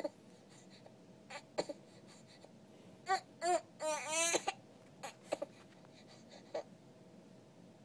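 Swaddled baby boy crying in short, broken cries, the longest and loudest about four seconds in. He is upset at having rolled himself over in his swaddle.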